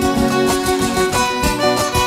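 Instrumental passage of Panamanian folk music: a violin playing a quick-moving melody over plucked and strummed guitar.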